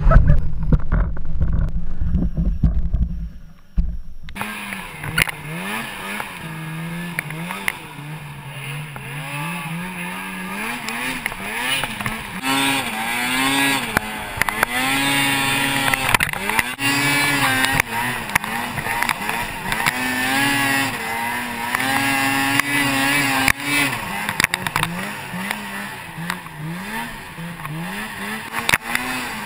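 A loud low rumble for about four seconds, then a snowmobile engine revving up and down again and again as the sled rides through deep snow.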